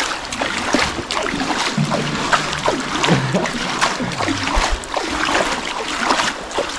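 Water splashing and dripping as people paddle a float by hand along an underground river: a steady run of irregular small splashes.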